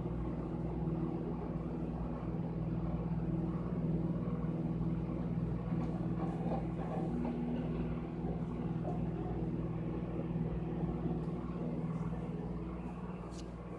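Microwave oven running, a steady low electrical hum, with a faint click near the end.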